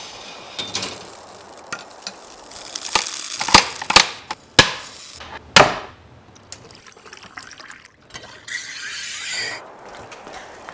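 Espresso-making sounds: a run of sharp metal clicks and knocks from the coffee gear, a quick falling whoosh about halfway, then about a second of hiss a little later.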